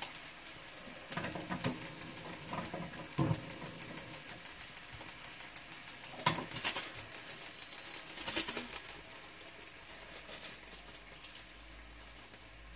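Rapid, even clicking taps at about five a second, lasting several seconds, with a few louder knocks among them.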